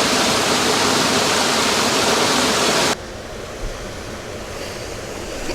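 Waterfall, steady rushing water that cuts off abruptly about three seconds in, leaving a much quieter background with a few faint ticks.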